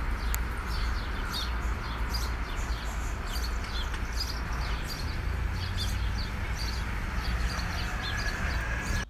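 Many short, high bird chirps throughout, over a steady outdoor noise with a strong low rumble.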